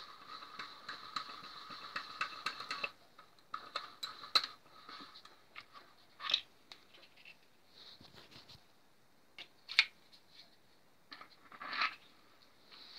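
A few sharp metallic clicks and knocks from handling a homemade shotgun-shell sizing tool as a plastic shell is fitted into it, the loudest about four and ten seconds in. A faint high steady whine runs under the first three seconds.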